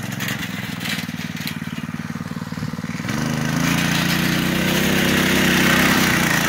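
Go-kart's small petrol engine running as the kart drives toward the microphone and passes close by: the engine gets louder and a little higher about halfway through. Its tyres crunch over the gravel as it draws near.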